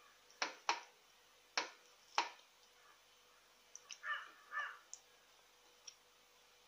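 Four sharp clicks in the first two seconds or so, then a crow caws twice, about four seconds in.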